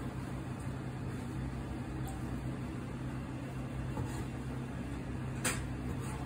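Steady low machine hum, with a few faint ticks of a kitchen knife slicing soft fish roe on a cutting board and one sharper click of the blade on the board about five and a half seconds in.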